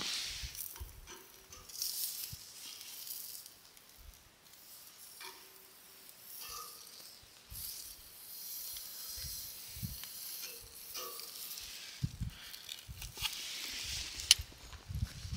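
Steak sizzling on a metal campfire grill grate over hot coals, a steady hiss, with metal tongs clicking against the grate as the steak is turned and lifted off, and a few low thumps.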